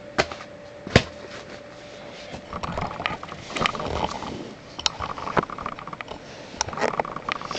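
Handling noise as firework cakes and boxes are moved about: scattered knocks and clicks, with one sharp knock about a second in, and bouts of rustling.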